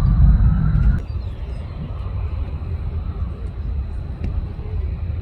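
Jet airliner engine noise: a loud low rumble with a rising whine that cuts off suddenly about a second in, then a quieter, steady low rumble.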